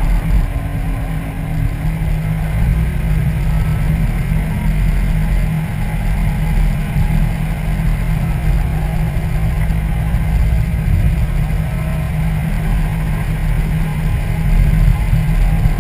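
Steady low rumble of a car driving along a road, picked up by a camera mounted on its front grille: wind and road noise.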